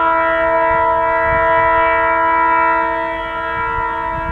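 Air horn of an approaching WDM-3A diesel locomotive sounding one long, steady blast, a chord of several held tones, with a low rumble underneath.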